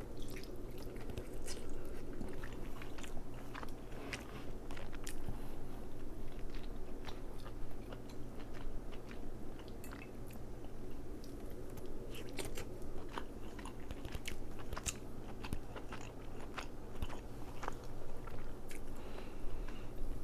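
Close-miked eating of crab: chewing and biting, with many sharp, irregular wet clicks from the mouth and food, over a steady low hum.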